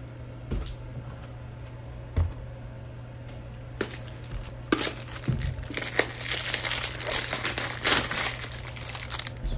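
Plastic trading card pack wrapper crinkling and tearing as it is ripped open and handled: a few light clicks, then a long stretch of dense crinkling from about four seconds in.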